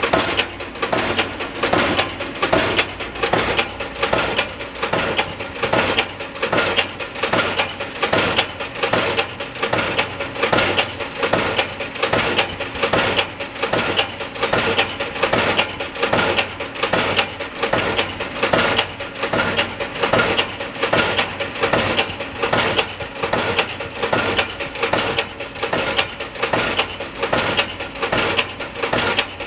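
Pile-driving hammer striking a pile over and over, a steady rhythm of hard metallic blows, more than one a second.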